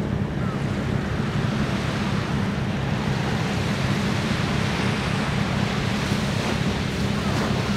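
Steady wind noise buffeting the microphone, mixed with the wash of the sea, a low, even rumble with no clear events.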